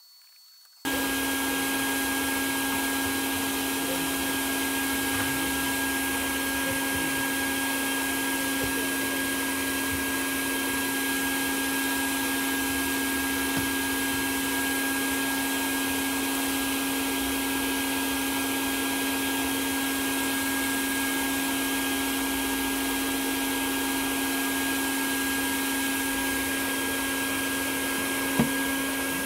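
A steady mechanical drone with a constant low hum, starting abruptly about a second in and holding unchanged, with one sharp click near the end.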